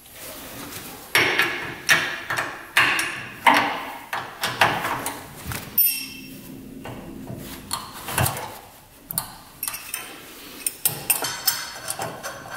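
Irregular metal clinks and knocks as a carburetor is worked loose by hand and pulled off a small two-stroke engine, with one short ringing metallic ping about six seconds in.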